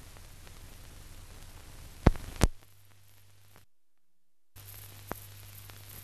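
Surface hiss and low hum of an old newsreel's optical soundtrack, with no programme sound, broken by two sharp pops a little after two seconds in. The track then drops out completely for under a second before the hiss returns with one fainter click.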